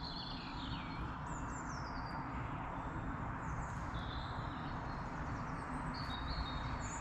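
Several small birds calling and singing in short whistled phrases that slide downward in pitch, over a steady background hiss.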